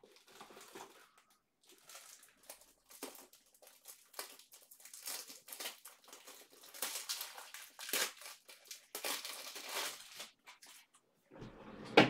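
Plastic packaging crinkling and rustling by hand in irregular bursts, growing louder toward the middle, then a sharp click near the end.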